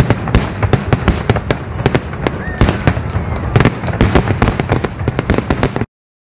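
Fireworks display: a dense run of bangs and crackling, several sharp reports a second, that cuts off abruptly near the end.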